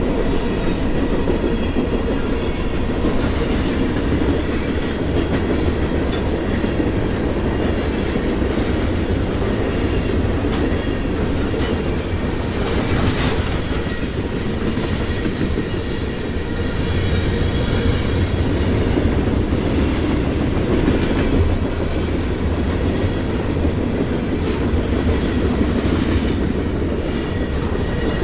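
Freight train cars rolling past at steady speed: a continuous low rumble with wheels clacking over rail joints and faint wheel squeal.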